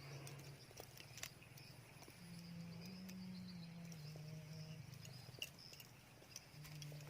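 Faint outdoor ambience at the water's edge: insects chirping in a high band, a low steady drone that shifts pitch a few times, and scattered light clicks.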